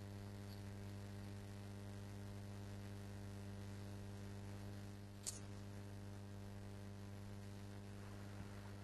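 Steady electrical mains hum with a stack of even overtones, and a single sharp click a little past halfway.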